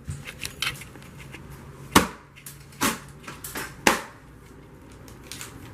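Plastic air-filled packaging bags being squeezed and twisted by hand, crackling, with three sharp snaps about a second apart in the middle.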